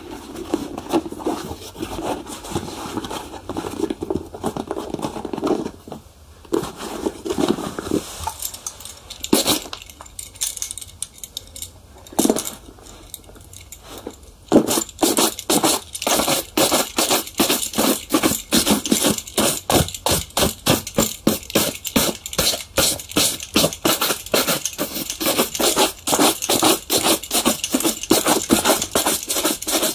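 Shoe polishing, rubbing on leather. Continuous scrubbing for the first several seconds, a quieter sparse stretch, then from about halfway a fast, even rhythm of sharp back-and-forth strokes, several a second.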